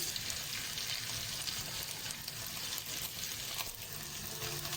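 Food frying in a hot pan, a steady sizzle.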